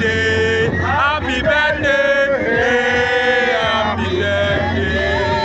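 Men singing a chant-like song over music, with long held notes over a steady low tone.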